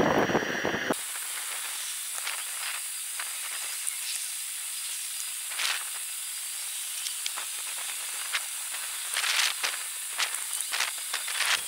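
Sped-up time-lapse soundtrack of outdoor antenna work: a steady high hiss with many short scattered clicks and taps. A louder rumble, like wind on the microphone, cuts off suddenly about a second in.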